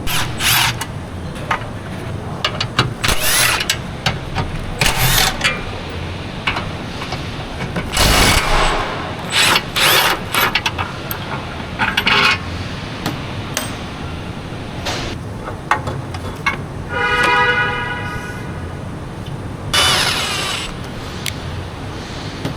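Mechanic's tool work on a car's underside: a string of short, sharp bursts and clanks over a steady background hum, with a brief ringing tone about seventeen seconds in.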